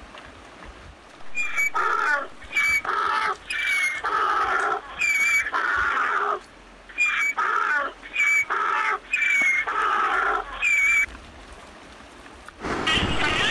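Donkey braying: a long hee-haw of about eight or nine even cycles, each a short high squeal followed by a longer, lower note. It starts about a second in and stops at about eleven seconds.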